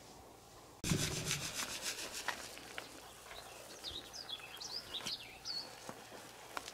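Salt poured from a box onto the flesh side of a fresh bear hide to cure it: a dense, rapid rattle of grains that starts suddenly about a second in, loudest at first, then goes on more softly. Birds chirp over it in the middle.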